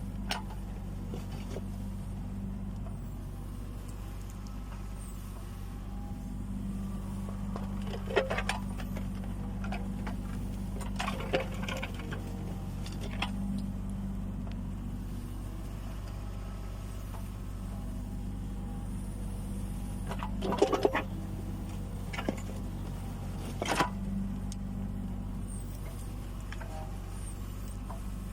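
Kubota U20 mini excavator's diesel engine running steadily while it digs, with scattered short clanks and scrapes from the bucket and soil, the loudest cluster about two-thirds of the way through.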